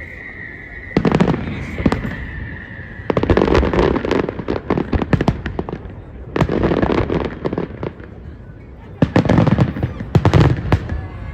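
Fireworks going off in several volleys of rapid bangs and crackles, with a high whistle sliding slowly down in pitch during the first three seconds.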